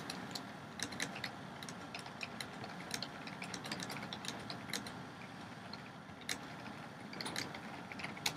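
Typing on a computer keyboard: irregular light key clicks, a few a second, over a faint steady hiss.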